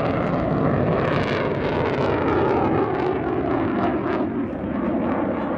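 Saab JAS-39C Gripen's single Volvo RM12 afterburning turbofan running at high power, with the afterburner lit, as the fighter pulls up in a steep climb: a steady rushing jet noise with a few sharp crackles.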